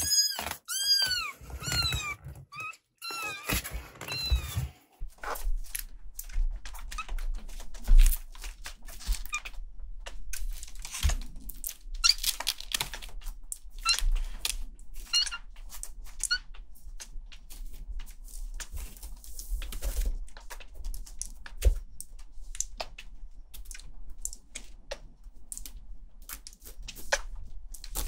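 Very young kittens mewing, a string of short rising-and-falling cries over the first few seconds. After that come many quick ticks and scratches as the kittens crawl over the wooden floor and pet pad, with a few faint mews among them.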